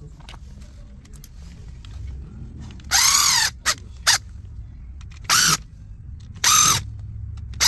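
Small electric screwdriver whirring in four short runs, with two brief blips after the first, its pitch rising and falling each time as it drives screws back into the housing of a BMW iDrive controller.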